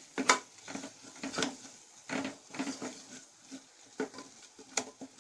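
Spatula stirring and scraping a thick onion-tomato masala in an aluminium pressure cooker pot, with irregular scrapes and knocks against the pot, the loudest about a third of a second in.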